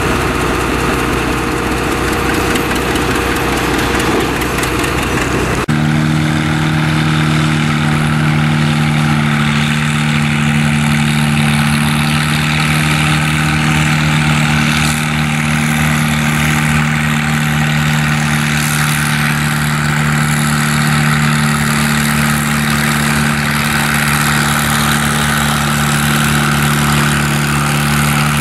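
An antique John Deere two-cylinder tractor engine running, then after a sudden change about six seconds in, an antique tractor engine running hard at a steady, unchanging pitch while pulling a weighted sled.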